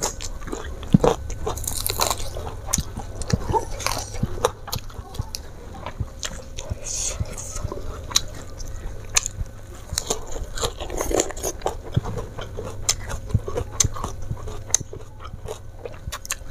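A person chewing and biting into a meal of rice, fried flatfish and raw lettuce close to a clip-on microphone, with crisp crunches and many short sharp clicks throughout.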